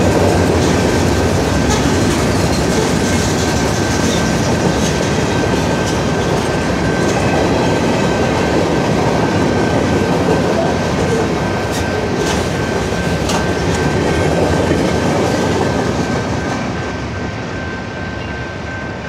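Freight train cars rolling past over a grade crossing, a loud steady rumble and clatter of wheels on rails with a few sharp clanks, fading away near the end as the last car clears. A steady high ringing from the crossing warning bell sounds throughout.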